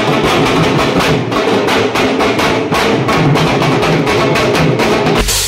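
Several dhol barrel drums beaten with sticks in a fast, steady rhythm.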